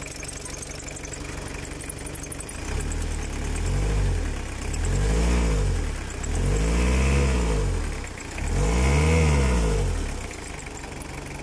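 Toyota Hilux 3.0-litre diesel engine running in its bay, revved up and let fall back four times in a row, then settling to a steady idle near the end.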